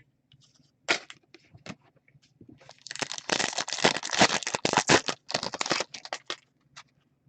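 Crinkling and tearing of a trading card pack wrapper for about three seconds, with scattered light clicks and rustles of cards being handled before it.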